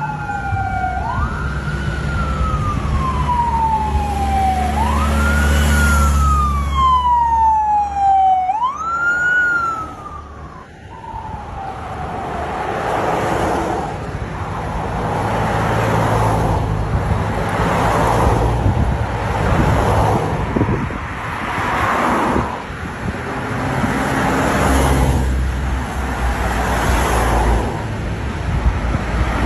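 Traffic police siren wailing, each cycle jumping up quickly and sliding slowly down, three times in about ten seconds, with a second siren briefly overlapping. After that, a line of motor vehicles passes one after another, a whoosh roughly every two seconds over running engines.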